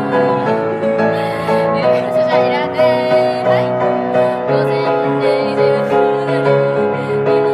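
Grand piano played with both hands: a melody over held chords, notes changing every fraction of a second.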